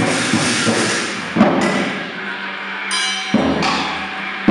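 Live experimental noise music: a dense wash of electronic noise and distortion over a steady low hum, broken by a few sharp knocks and a bright hissing burst a little past the middle.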